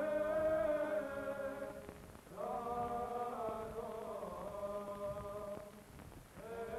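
Byzantine chant used as the soundtrack: voices sing long, slowly moving held phrases over a steady drone note, with a short pause between phrases about two seconds in and another near the end.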